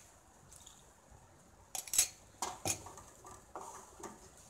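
Wooden spatula scraping and stirring a thick masala paste in a kadai: a few scrapes and knocks against the pan, the loudest about two seconds in, after a quiet start.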